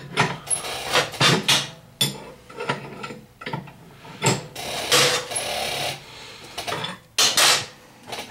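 Irregular metallic clicks, clunks and scrapes as a Triumph chopper's springer front end is let down from full extension to ride height, with a longer rasping stretch about two-thirds of the way through.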